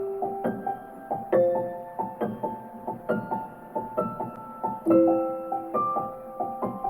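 Gentle piano music: a steady, even run of notes under a melody, with a new chord about every second and a half to two seconds.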